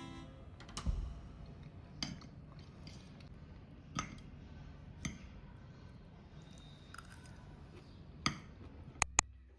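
Dishes and cutlery clinking: a string of separate sharp taps a second or two apart, with two louder ones in quick succession near the end.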